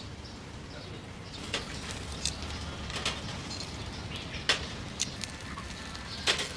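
Chicken leg quarters grilling on a wire rack over charcoal, with a handful of sharp clicks and pops as the pieces are turned; the loudest come about four and a half seconds in and near the end.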